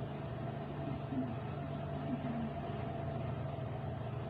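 A steady low mechanical hum with a thin, steady whine above it.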